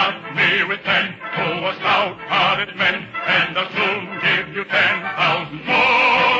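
Baritone singing with an orchestra in an old radio broadcast recording: a run of quick, clipped sung syllables, then a long held note near the end.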